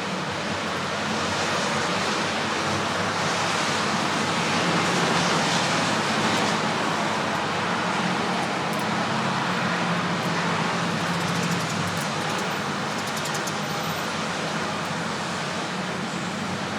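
Steady rushing background noise, swelling a little between about two and six seconds in.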